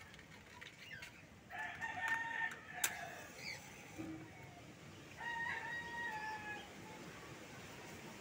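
A rooster crowing twice, each crow one long held call, the first about a second and a half in and the second about five seconds in. A single sharp click sounds near the end of the first crow.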